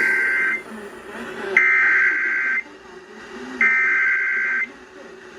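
Emergency Alert System SAME header data bursts: harsh two-tone digital buzzes about a second long, the end of one and then two more, each a second apart. They mark the start of a new alert, here a flash flood warning.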